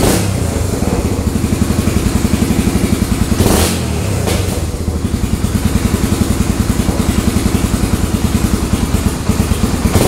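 Honda ATC 350X three-wheeler's single-cylinder four-stroke engine running warm on a freshly installed reconditioned Keihin carburetor, restarted without choke. It runs steadily, with one short louder burst about three and a half seconds in.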